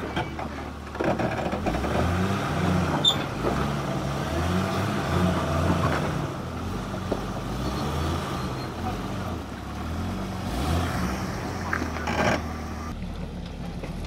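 Jeep Grand Cherokee ZJ's engine working under load as it crawls up a rock step, its note rising and falling in uneven throttle bursts.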